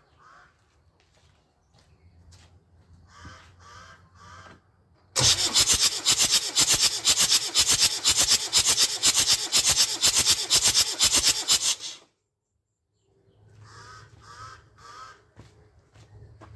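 Land Rover 12J 2.5-litre naturally aspirated diesel engine being turned over on the starter for a compression test on cylinder four, with an even, rhythmic cranking beat for about seven seconds that starts about five seconds in and cuts off suddenly. On this crank cylinder four reads just over 300 psi, lower than the others, which the owner later puts down to not cranking long enough.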